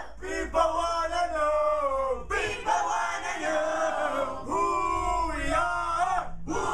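A group of teenagers singing and chanting loudly together, without instruments, with long held notes.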